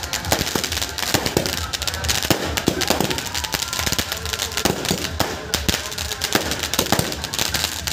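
A 50-shot aerial firework cake firing non-stop, its shells launching and bursting overhead in rapid, irregular bangs, several a second.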